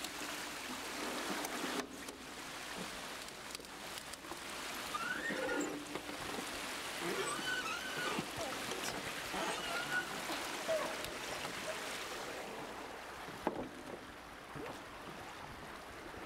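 Steady rushing noise of water from a canoe-trip video's soundtrack, played over a hall's speakers.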